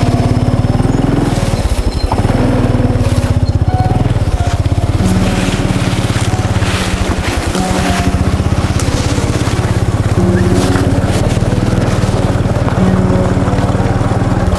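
Small motorcycle engine running with a steady low drone as it rides off. Slow background music notes are held over it.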